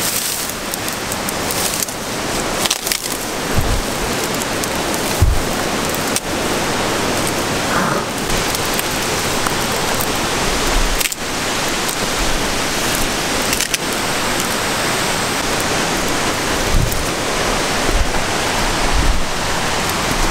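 Continuous rustling and crackling of dry bracken fronds and twigs brushing against the camera and its on-camera microphone as people push through thick undergrowth.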